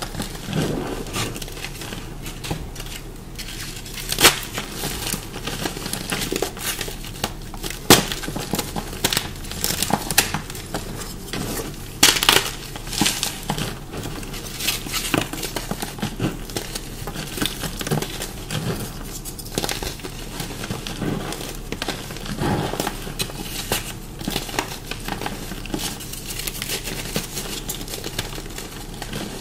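Dyed chalk boulders crunching close to the microphone, in many irregular sharp crunches with a few louder ones; the dyeing and pasting have made this chalk crunchy.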